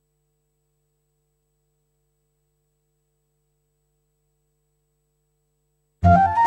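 Near silence, then music starts suddenly about six seconds in with a quick rising run of bright notes.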